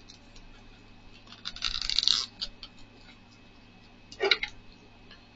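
Small cardboard box being opened by hand: light clicks of long fingernails on the cardboard, a scratchy rustle of the flap and packaging about a second and a half in, and a short louder sound near the end.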